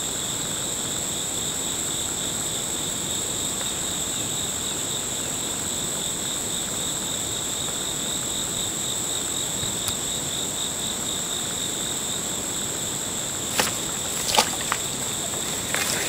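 A steady, high-pitched insect chorus trilling without a break, with a couple of short sharp rustles or knocks near the end.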